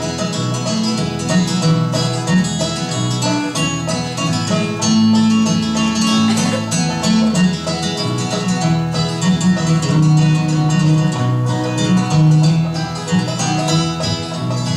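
A band playing an instrumental break between verses of a country gospel song, with plucked strings in a bluegrass style.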